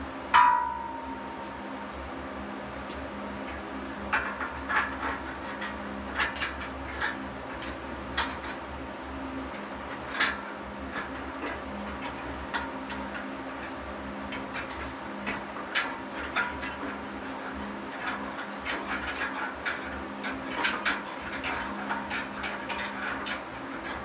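Steel squat-rack parts knocking and clinking during hand assembly: one sharp metallic clang that rings briefly near the start, then scattered light clicks and taps. A steady low hum runs underneath.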